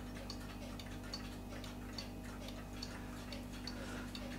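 Paico owl pendulum wall clock ticking steadily, with evenly spaced tick-tocks at about five every two seconds: a clock in good beat.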